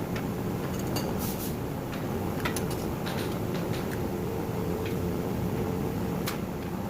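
Circular saw running: a steady low noise, with scattered sharp clicks and knocks.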